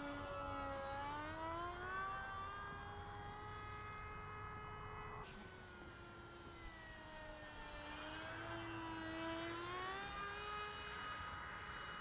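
Radio-controlled FPV model plane flying overhead, its motor and propeller giving a steady pitched whine. The pitch climbs over the first couple of seconds, dips about five seconds in, and rises again near the end as the plane changes throttle and distance.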